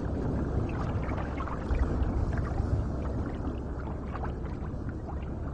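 Underwater ambience: a low, steady rumbling wash with a few faint clicks.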